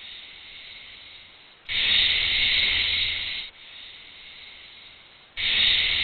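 Animal hissing in long, breath-like pulses: loud hisses under two seconds long, about two seconds in and again near the end, with quieter hissing between them.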